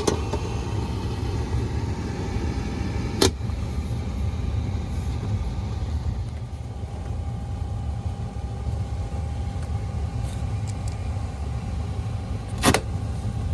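Space Pak air handler running on a call for heat, a steady low rumble, with two sharp knocks, about three seconds in and near the end, as its cover panel is put back on.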